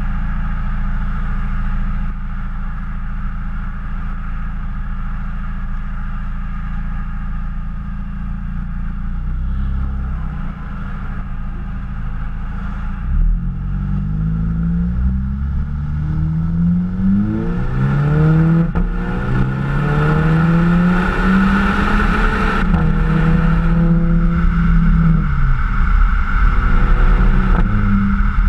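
2014 VW GTI Mk6's turbocharged 2.0-litre four-cylinder heard at the tailpipe through a Borla exhaust. It idles steadily, then about 13 seconds in it pulls away and accelerates up through several gears, the pitch rising and dropping back at each shift. It then holds a steady note as tyre and wind noise grow with speed.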